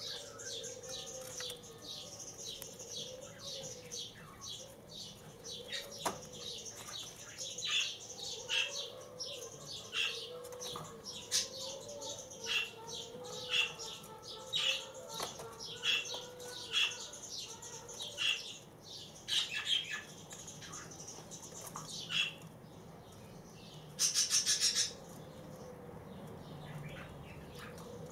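Young white doves preening and flapping their wings in a cage, over short high bird chirps repeating about once or twice a second. Near the end there is a brief fast buzzing trill.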